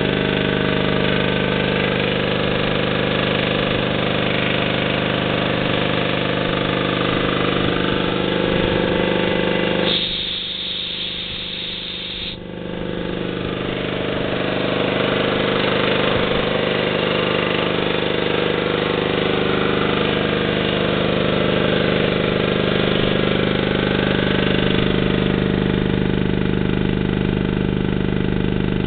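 Ingersoll Rand 80-gallon vertical two-stage reciprocating air compressor, driven by a three-phase electric motor, running steadily as it pumps up. About ten seconds in, the running sound thins out for about two seconds, with a high hiss standing out, then returns to its steady level.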